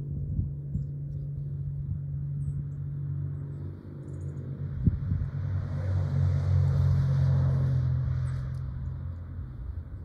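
A pickup truck drives past on the road. Its engine hum and tyre noise swell to a peak around seven seconds in, then fade.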